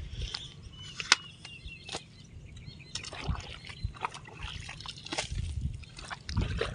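Water sloshing and splashing in a muddy drainage ditch, with irregular knocks and scrapes from a hand blade as the channel is cleared.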